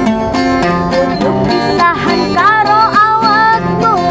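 Acoustic guitar strummed in a steady rhythm. A woman's singing voice comes in over it about two seconds in.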